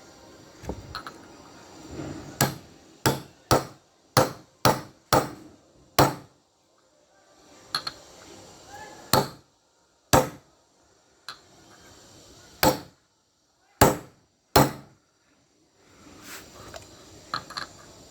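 Hammer blows driving a ball bearing into a scooter's front wheel hub: about a dozen sharp strikes, a quick run of seven in the first few seconds, then slower, spaced blows.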